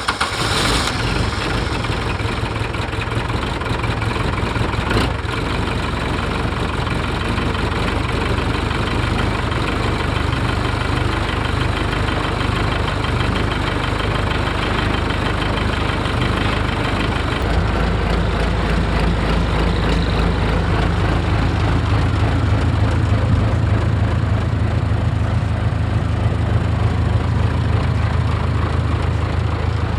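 Case 580K backhoe's diesel engine running steadily just after a cold start. About seventeen seconds in its low drone deepens and grows a little louder.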